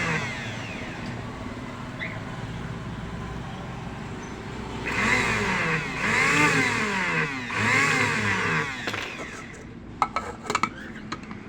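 Electric coffee grinder motor switched on in short pulses, three times, each time whining up in pitch and winding down when released, with a lower whirr before and a few clicks near the end.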